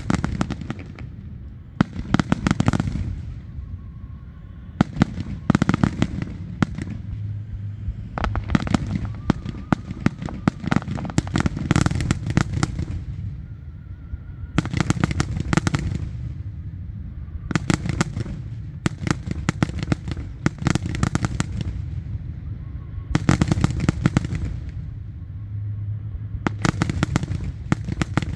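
Fireworks going off: a cluster of rapid cracks and bangs every two to three seconds, over a continuous low rumble.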